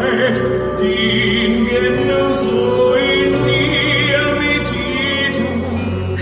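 Live musical-theatre orchestra playing a slow passage of sustained chords, with long high notes wavering in vibrato over it.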